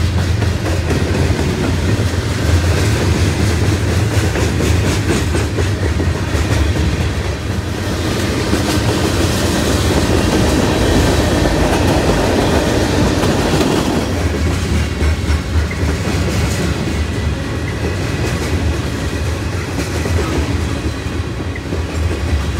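Freight train of covered hopper cars rolling past close by, a steady rumble with the wheels clacking over the rail joints.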